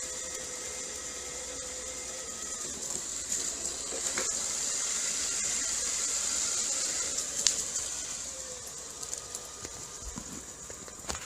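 Robot vacuum cleaner running: a steady motor whir with a high hiss that grows louder about four seconds in and fades again after about eight seconds, with a sharp click in between.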